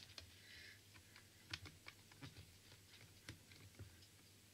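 Faint scattered taps and clicks as hands work a clear stamp in a stamp positioning tool, inking it and pressing it down onto cardstock for a second impression.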